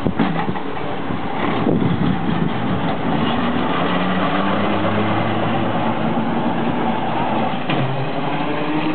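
Vintage tram passing close by and pulling away, its wheels rolling on the rails with a steady running hum and a few short knocks.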